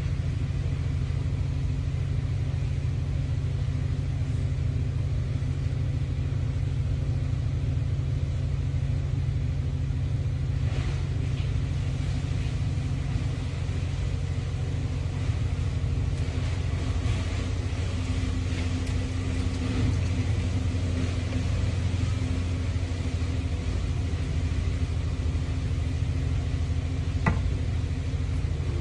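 Steady low rumble of running machinery throughout, with a single sharp click about a second before the end.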